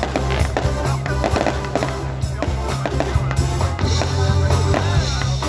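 Music with a steady bass line and a singing voice, with the pops and crackles of aerial fireworks bursting over it.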